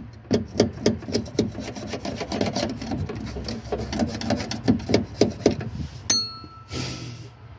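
Screwdriver tip scraping caked dirt off the steel floor pan around a fuel pump access opening in quick strokes, about four a second, clearing the dirt so it cannot fall into the fuel pump. About six seconds in the metal gives one sharp ringing ping, followed by a short hiss.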